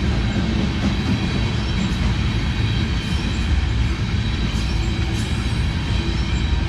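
Freight train cars rolling past at close range: a steady, heavy rumble of wheels on rail with a faint, high wheel squeal.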